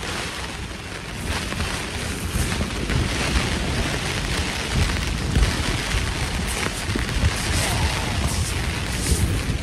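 Strong gusty wind buffeting the microphone, with a low rumble that swells and dips, and rain hissing down in a coastal squall.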